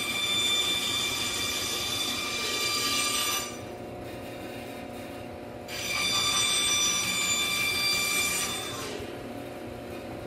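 Bandsaw cutting a wooden board twice, once for each diagonal side of a V cut, each cut lasting about three seconds. While the blade is in the wood a steady high whine rides over the machine's hum. Between the cuts and after the second one the saw runs free and quieter.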